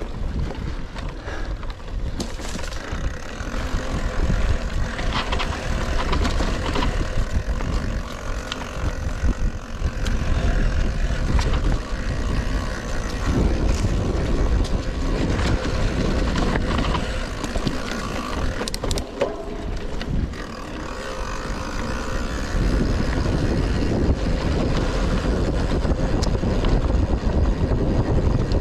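Rockrider XC 900 mountain bike ridden over a bumpy forest trail: a steady rumble of tyres and wind on the action-camera microphone, with scattered clicks and knocks from the bike.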